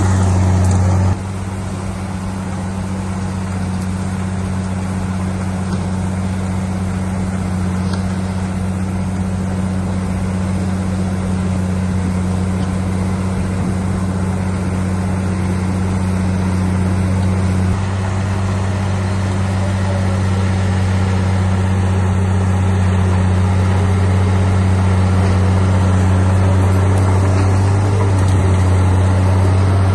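Heavy diesel engine of earthmoving machinery running with a steady low drone. The level drops suddenly about a second in, then the engine slowly grows louder.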